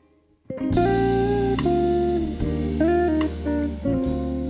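Background music led by guitar over a steady bass line, starting after a brief silent gap about half a second in, with a new chord struck roughly every second.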